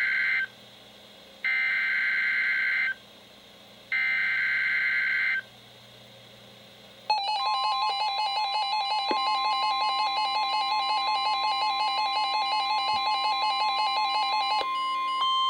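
NOAA Weather Radio SAME alert header: three short bursts of warbling digital data, then the steady 1050 Hz warning alarm tone, announcing a severe thunderstorm warning. Over the tone, weather alert radios sound their own rapid beeping alarms, which stop shortly before the end while the steady tone carries on.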